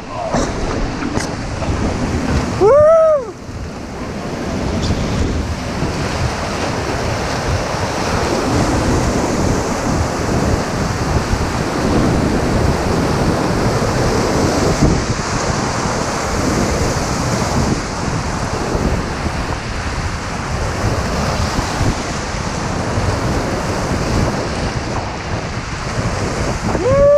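Whitewater rushing steadily around a raft on a class III river, with wind buffeting the microphone. About three seconds in, a brief tone rises and falls in pitch.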